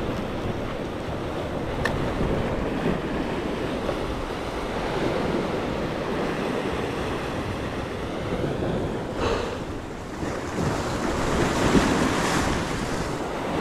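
Sea waves washing against a rocky shore, with wind buffeting the microphone; a few short knocks stand out about 2, 9 and 12 seconds in.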